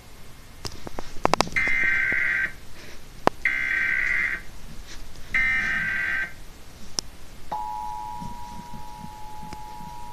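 Emergency Alert System test tones: three one-second bursts of the warbling digital SAME header data, about a second apart, followed by the steady two-tone EAS attention signal, which starts about two thirds of the way in and holds.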